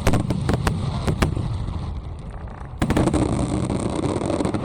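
Aerial fireworks going off: a quick string of sharp crackling pops in the first second or so, over a steady low rumble. About three seconds in, a sudden loud burst is followed by more crackles and a dense rumble.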